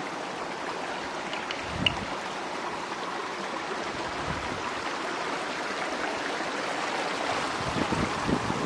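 A stream of flowing water rushing steadily and growing a little louder, with a few soft thuds of footsteps on the trail.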